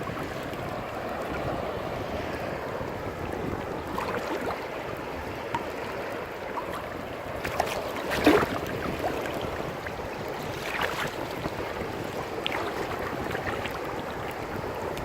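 Rough ocean water churning, with wind buffeting the microphone. A few short sharper bursts stand out, the loudest about eight seconds in.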